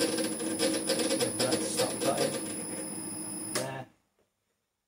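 Metal lathe running under power on a screw-cutting pass, cutting a 5 tpi Acme internal thread in bronze: a rapid mechanical clatter over a steady hum. It cuts off abruptly just under four seconds in.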